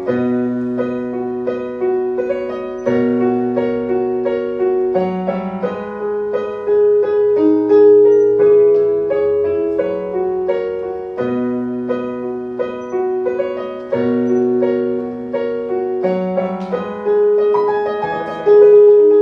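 Piano playing an instrumental passage of a slow ballad: a gentle melody of struck notes over held bass notes and chords, with no singing.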